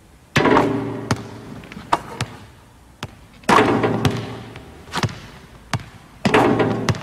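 Basketballs bouncing on a hardwood gym floor: three loud bounces about three seconds apart, each ringing and echoing around the hall, with lighter bounces in between.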